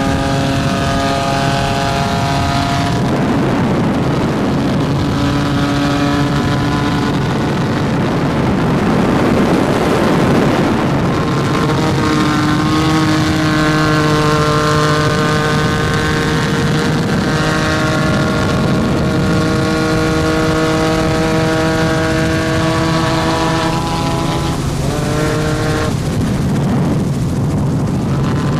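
Loud, steady engine noise: a constant low hum under a set of engine tones that climb slowly, then break off and jump to a new pitch several times.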